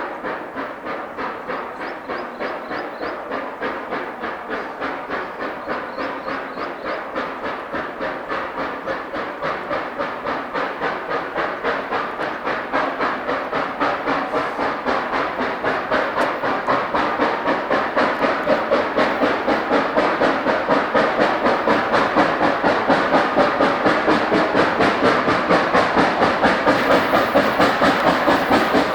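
Steam locomotive working slowly up a steep grade, its exhaust chuffing evenly at about two and a half beats a second and growing steadily louder as it approaches.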